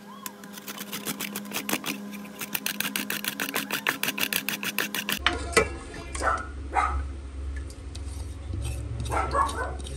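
Carrot grated on a flat round stainless-steel grater: quick rhythmic rasping strokes, about five a second, stopping about five seconds in. After that there is a low steady hum, with scattered light knocks and scrapes as the grated carrot is tipped into the bowl.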